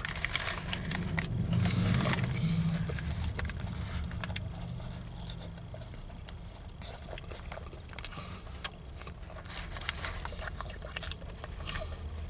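Someone biting into and chewing a sandwich, with scattered short crackles and clicks from its paper wrapper, over a low steady hum.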